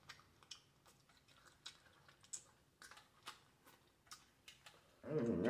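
Close-up mouth sounds of chewing seafood-boil food: scattered, irregular soft wet clicks and smacks. A short hum of the voice comes near the end.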